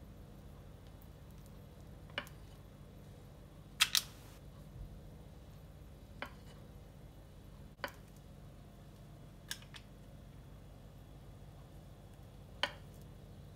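Tablespoon clinking as cake batter is spooned into foil cupcake cases: about six short, sharp clicks a second or two apart, the loudest a double click about four seconds in, over a faint low hum.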